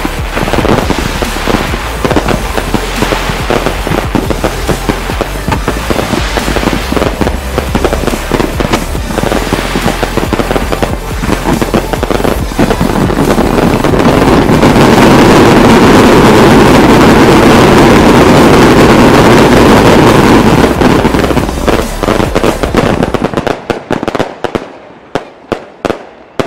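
Aerial fireworks display firing shells, comets and mines in rapid succession. The sharp reports run together into a dense, unbroken barrage about halfway through, then thin out to scattered separate pops and crackles near the end.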